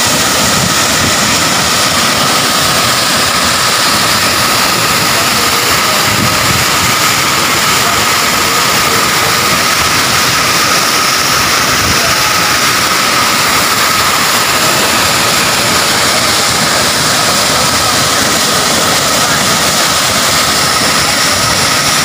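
Waterfall and the white-water torrent below it, roaring steadily and loudly without a break.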